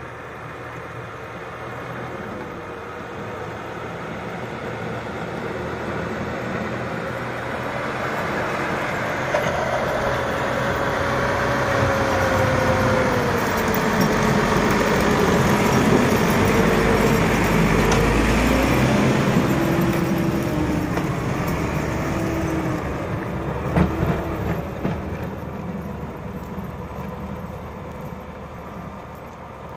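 JCB tractor's diesel engine working as it pushes snow with a front plow. It grows louder as the tractor comes close, about halfway through, then fades as it draws away. A few sharp knocks come about three-quarters of the way through.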